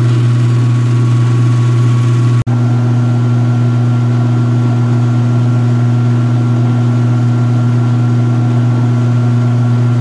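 A 2016 Speed Queen top-load washer's belt-driven motor and transmission run with a steady, even hum while the tub spins. About two and a half seconds in there is a momentary break, after which the hum continues with a slightly changed tone.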